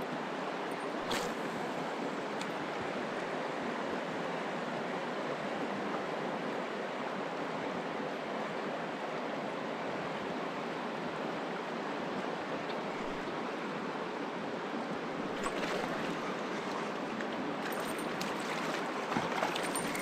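Mountain river water rushing steadily, with a few faint knocks about a second in and near the end.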